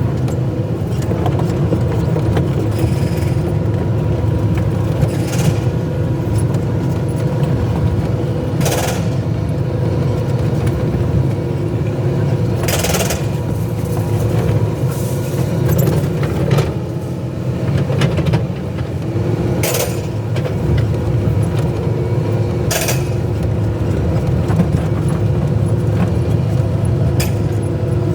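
Excavator diesel engine running steadily, with several sharp knocks or clanks spaced a few seconds apart.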